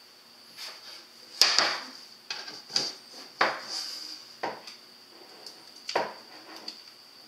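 Wooden base board and small hardware being handled on a wooden desk: a string of separate knocks and clatters as the board is tipped up and a screwdriver, screws and a 3D-printed plastic foot are picked up and fitted, the loudest knock about a second and a half in.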